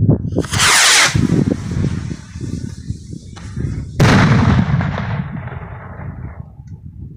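A firework rocket lifts off with a loud whoosh lasting about half a second, then bursts overhead with a sharp bang about four seconds in. The noise of the burst echoes and fades over the next couple of seconds, over a steady low rumble.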